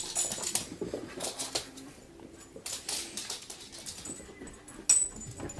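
Beagle puppy whining softly, with scattered light clicks and knocks and one sharp knock near the end.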